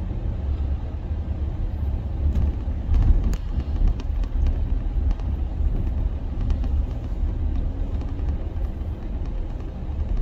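A car on the move: a steady low rumble of road and engine noise, with a few faint clicks early on.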